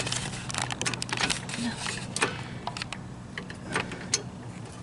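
Steel jack stands being worked free from under a car: a run of sharp metallic clicks and clanks, thicker in the first half and sparser toward the end.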